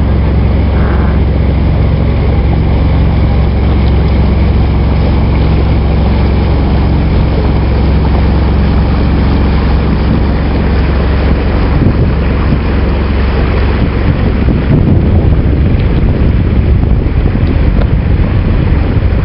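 A small ferry boat's engine running steadily with a low hum, and wind buffeting the microphone. The wind gets gustier from about halfway through as the engine hum fades under it.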